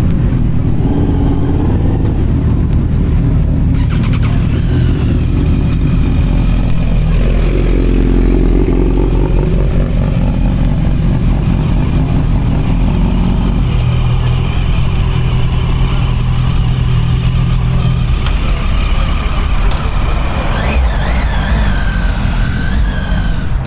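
Motorcycle engines running close by, a steady low idle throughout. The engine pitch dips and rises about a third of the way in, and climbs again near the end as a bike revs.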